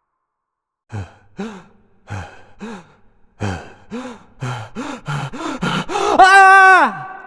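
A person's voice gives a run of short gasping cries that come quicker and quicker, then a loud drawn-out scream that rises and falls in pitch. The scream is the loudest part and leaves a steady ringing tone trailing at the end.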